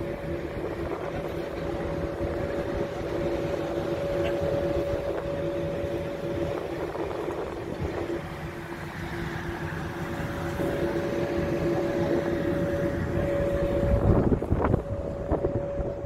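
A motor coach's engine idling at a stop, a steady rumble with a constant hum, and wind buffeting the microphone. A few knocks come near the end.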